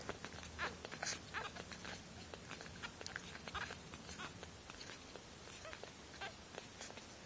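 Ten-day-old Shih-poo puppies nursing from their mother: a steady run of soft, irregular wet suckling clicks and smacks, with a few brief squeaks.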